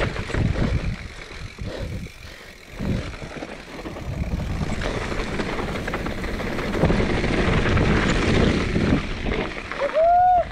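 Mountain bike riding down a dirt and loose-rock trail: wind buffeting the microphone mixed with the rattle and crunch of tyres and bike over the ground. Near the end a short squeal rises and holds for about half a second.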